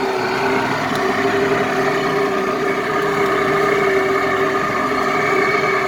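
The jet-ski-type engine of a 1992 Sea Ray boat running under way at a steady pitch: an even drone with a hiss beneath it.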